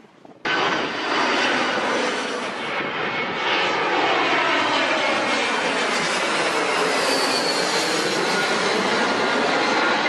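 Twin-engine jet airliner flying low overhead on final approach with its landing gear down: the steady rush of its jet engines, starting suddenly about half a second in.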